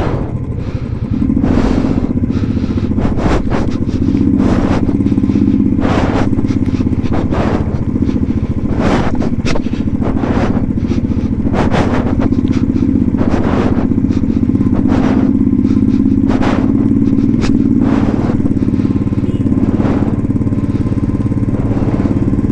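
Motorcycle engine running steadily while riding over a rough, stony road, with irregular knocks and rattles about once a second as the bike jolts over rocks.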